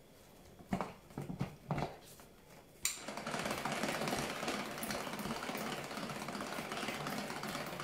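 A few light plastic knocks as the lid of a Tupperware Speedy Chef 2 hand-crank whisk is fitted back onto its jug, then, about three seconds in, the crank is turned at a steady pace: a fast, even whirring rattle of the plastic gears and beaters whipping cream.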